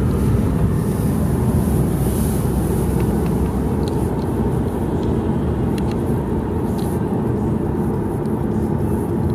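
Steady low rumble of a car driving in town, tyre and engine noise heard from inside the cabin.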